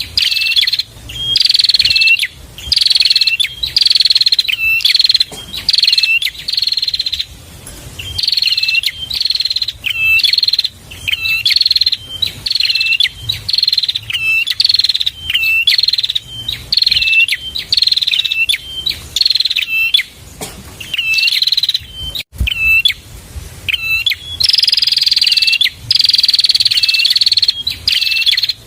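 Prenjak (prinia) singing: a fast, loud, repeated high chirping phrase, about one note a second or more, going on in long runs with short breaks.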